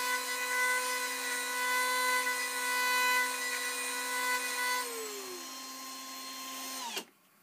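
Cordless drill and a rotary tool both running, with a Cratex rubber-abrasive polishing point rubbing against the spinning rivet gun nose to polish its rivet-head cavity: a steady whine over a rubbing hiss. About five seconds in the rubbing stops and one motor winds down, and near the end the whine cuts off suddenly.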